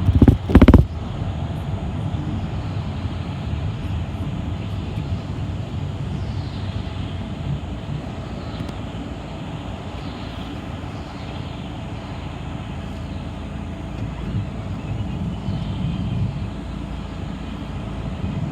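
Steady engine and road rumble heard from inside a city bus while it is moving, with one brief loud bang just under a second in.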